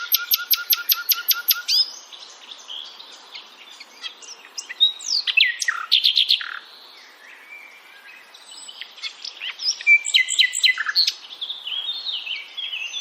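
A bird calling: a fast, even trill of about eight notes a second for the first two seconds, then a string of varied short chirps and rising and falling whistles.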